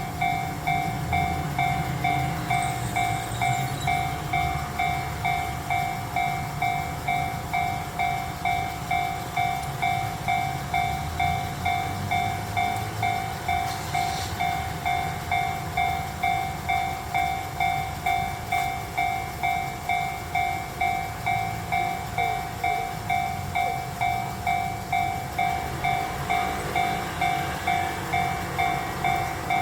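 Japanese railroad level-crossing warning bell ringing steadily at about two dings a second, the signal that the barriers are down and a train is due. Under it is a low, steady rumble.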